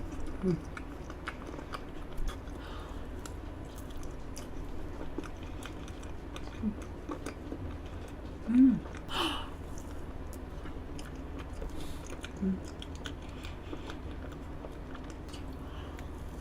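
Close-miked chewing of a soft chocolate-cream-filled cake: small wet mouth clicks throughout, with a few brief low hums, the loudest about eight and a half seconds in.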